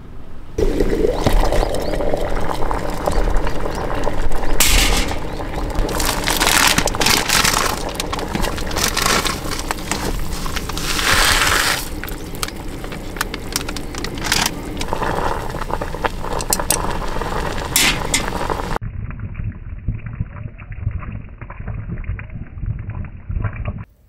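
Instant ramen being made in a collapsible electric kettle: water pouring and heating, with the noodle packet rustling. The sound comes as several cut-together clips, and the last few seconds are abruptly duller.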